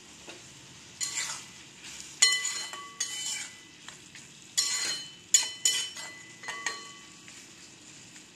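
Flat metal spatula stirring chunks of tomato in a metal kadai: about seven scrapes and clinks of metal on the pan between one and seven seconds in, some ringing briefly, over a faint sizzle of the cooking tomatoes.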